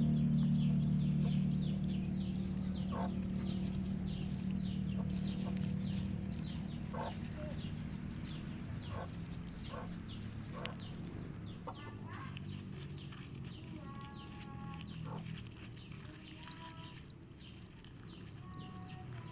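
Chickens clucking, with short calls scattered through and a few longer tonal calls near the end. A steady low hum is loudest in the first few seconds and slowly fades, and a fast run of high chirps runs through the first half.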